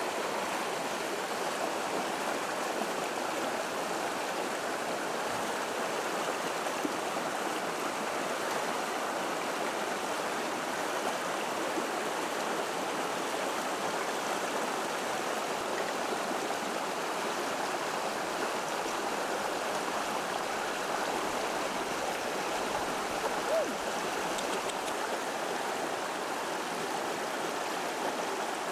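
Running water with a steady, even rush, like a flowing stream.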